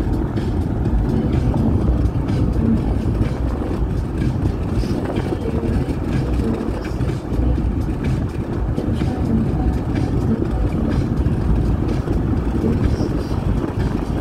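Steady road and wind noise in a car travelling at highway speed, mostly a low rumble.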